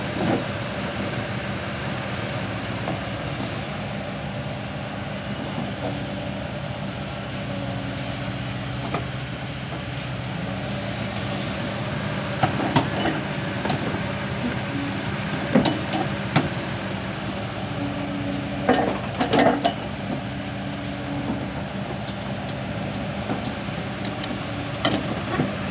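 Kobelco SK220 excavator's diesel engine running steadily, with a higher tone coming and going as the boom works. Several sharp metal clanks and knocks come in the middle of the stretch.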